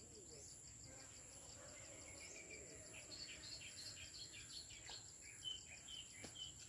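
Faint outdoor insect chorus: a steady high-pitched buzz with fast, evenly repeating chirps, and a few faint bird chirps after about three seconds.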